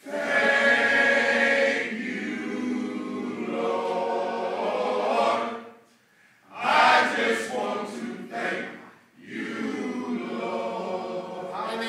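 A men's choir singing a worship song together, in three phrases that break off briefly about six and nine seconds in.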